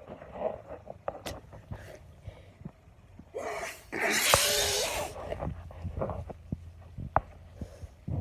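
A woman sneezing once, about three and a half seconds in: a short voiced intake runs straight into a noisy blast that lasts about a second. Faint small clicks come before and after it.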